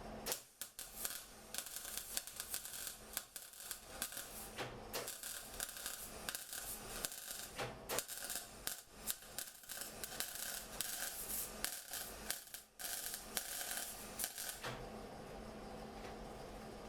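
Irregular hand scraping and scratching on steel, full of small clicks and ticks: paint and rust being stripped from a car chassis by hand. It stops about fifteen seconds in.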